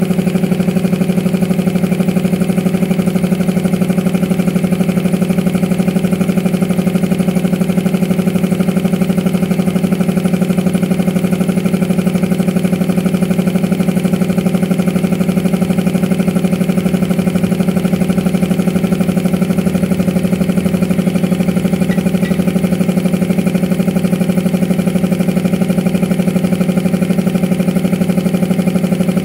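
Belt-driven reciprocating air compressor running steadily under load, pumping up its tank as the pressure climbs toward the pressure switch's cut-out.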